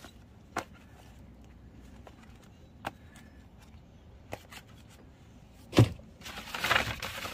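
Books and a plastic laundry basket being handled: a few light taps, one sharp thump about six seconds in, then steady rustling and scraping as hands rummage inside the basket.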